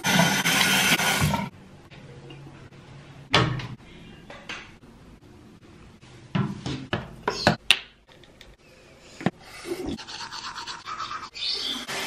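A bathroom sink tap running into a ceramic basin for about a second and a half. Then come scattered clicks, small knocks and brief rustles as a towel is rubbed over the face. Near the end the tap runs into the basin again.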